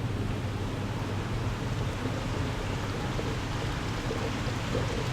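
Steady hiss of running, bubbling water with a low steady hum, as from aquarium tank filtration and air pumps.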